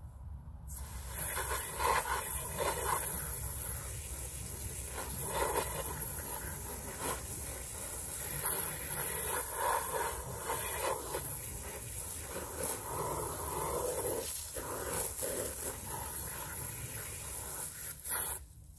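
Garden hose spray nozzle hissing steadily as the jet of water spatters onto a fabric yurt window panel. The spray starts about a second in and cuts off suddenly just before the end.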